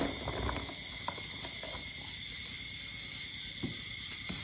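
Steady high-pitched drone of night insects, with one sharp knock right at the start as plastic baskets of bananas are set down on the ground, and a few faint knocks later.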